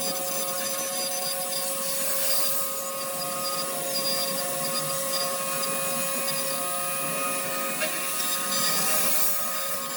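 CNC router cutting 8 mm PVC board: a steady spindle whine over the hiss of the bit in the plastic, with swells in the cutting noise about two seconds in and again near the end.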